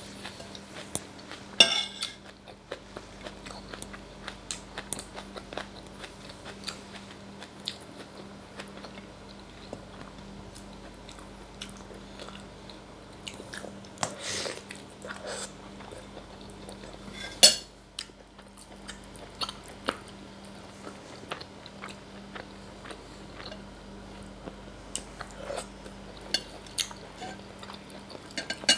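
Close-miked eating: chewing and biting on pieces of meat from a bowl of meatball soup, with small clicks throughout. A metal spoon clinks against the bowl, with two sharper clinks, one near the start and one a little past halfway.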